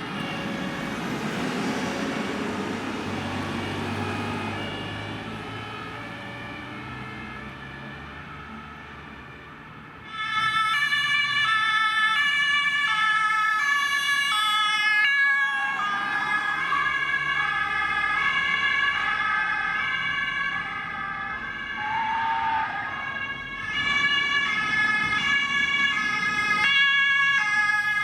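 German two-tone emergency sirens (Martinshorn). A fire brigade command vehicle's siren fades away over the first few seconds. After a sudden jump in level, a police patrol car's two-tone siren sounds loud and close, and a second patrol car's siren follows near the end.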